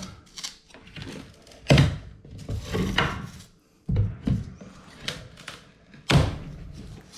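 Flat pry bar levering nailed wooden door casing off the wall: a series of sharp thunks and cracks at irregular intervals as the casing pops loose from its nails.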